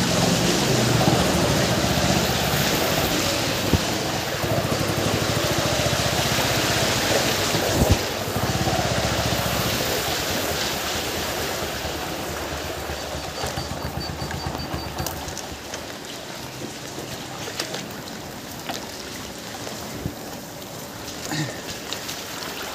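A motorbike riding through deep floodwater in heavy rain: a steady rush of rain and splashing water, with the bike's engine running under it. The noise eases in the second half.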